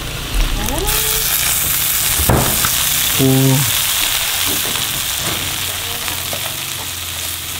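Sour bamboo shoots and coconut worms (palm-weevil grubs) sizzling as they are stir-fried in a hot pan. The sizzle grows louder about a second in, and there is a single knock a little after two seconds.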